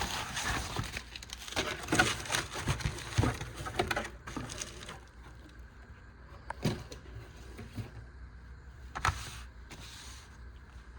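Plastic shopping bag and packaging rustling and crinkling as items are pulled out, dense for about the first four seconds, then a few scattered clicks and taps.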